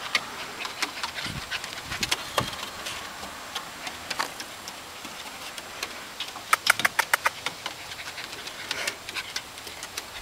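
Alaskan Malamute puppies' paws and claws clicking on wooden deck boards as they scamper, with scattered clicks and then a quick run of about eight clicks about six and a half seconds in.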